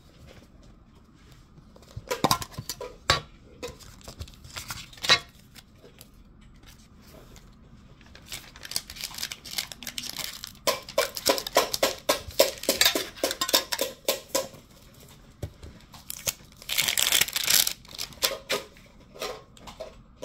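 Packaging handled at close range: plastic wrapping and foil booster packs crinkling and tearing, with sharp clicks and taps, in several bursts separated by quieter pauses.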